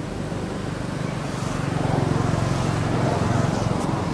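Motor vehicle engine running nearby, a low pulsing rumble that swells about two seconds in and eases off near the end, like a vehicle passing by.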